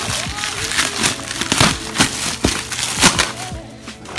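Clear plastic wrap being crinkled and pulled off a cardboard box by hand: loud, irregular crackling rustles.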